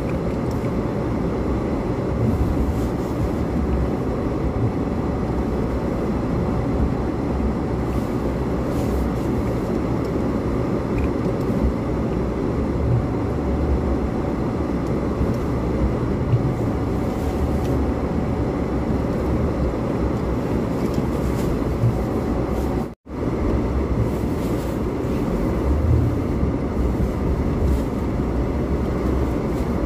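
A car heard from inside the cabin: a steady low rumble of engine and tyre noise as it struggles in deep snow. The sound drops out for an instant about three-quarters of the way through.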